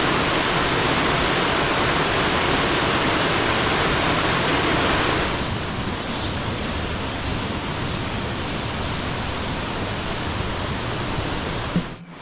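Rushing water of a mountain valley stream, a steady rush that drops to a lower level about five seconds in.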